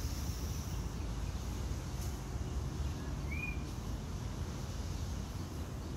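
Park ambience: a steady low rumble of background noise, with a single short bird chirp a little over three seconds in.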